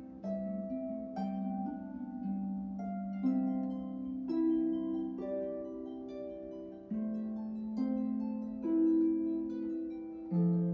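Solo harp playing a slow sarabande: plucked chords and single notes that ring on, a new chord or note roughly every second.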